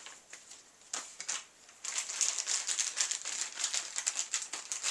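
Packaging being handled: a few light clicks about a second in, then a steady run of crinkling and rustling from about two seconds in.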